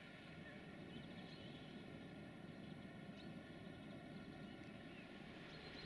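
Near silence: faint, steady outdoor background hiss with a few short, faint high chirps scattered through it.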